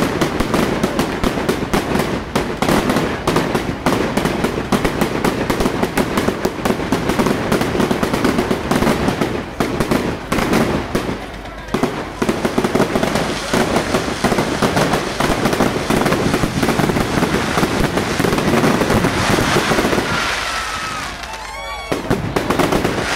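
Fireworks going off in a dense, continuous barrage of rapid bangs and crackling, easing off about twenty seconds in.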